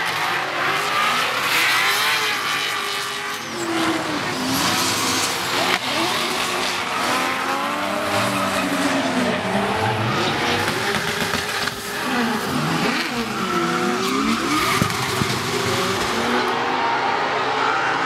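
Several drift cars sliding in tandem: their engines rev up and down, rising and falling in pitch over one another, and their tyres screech as they slide.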